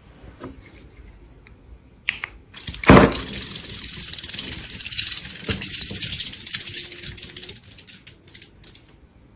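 A few light clicks, then a sharp hit about three seconds in, followed by a dense, fast mechanical rattling buzz. The buzz thins into scattered clicks near the end.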